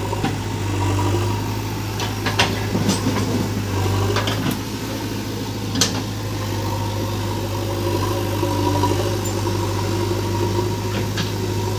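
Heavy diesel engine of a backhoe loader and tractor at work, running steadily, with a few sharp clanks and knocks about two to six seconds in and again near the end.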